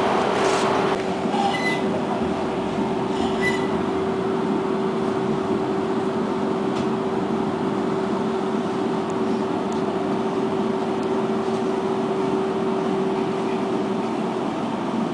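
Interior running noise of a Konstal 105Na tram: an even rumble with one steady hum that cuts off near the end, and a few short clicks in the first few seconds.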